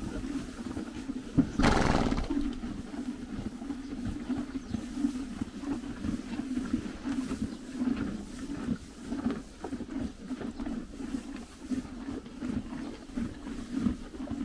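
Ponies chewing hay with steady rhythmic crunching, and the rustle of hay as they pull mouthfuls from a metal feeder. About two seconds in, one loud breathy blow from a horse stands out above the chewing.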